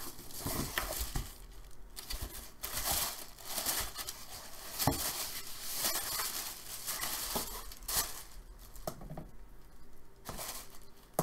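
Hands crumpling and rustling sheets of white tissue packing paper in irregular bursts, with a few light knocks in between.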